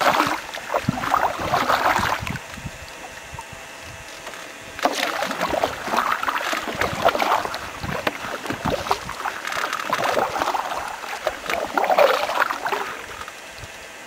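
Canoe paddling: water splashing and dripping as the paddle dips and pulls, about one stroke a second. The strokes pause for a few seconds after the start and pick up again about five seconds in.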